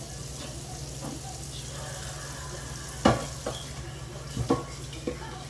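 Egg frying in a skillet with a steady sizzle. About three seconds in come several sharp knocks or clinks, the loudest sounds here.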